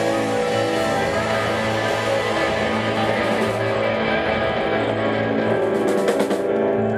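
Live Southern rock band playing loud, with electric guitars over a drum kit.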